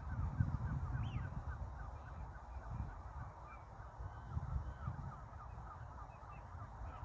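A flock of estuary waterbirds calling, gulls and wigeon among them: a dense chatter of many short overlapping calls, with one louder higher call about a second in, over a low rumble.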